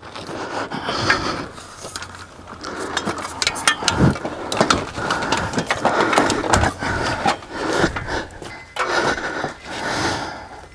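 Aluminium extension ladder knocking and rattling as a man climbs down it, with many short knocks and clicks, thickest in the middle.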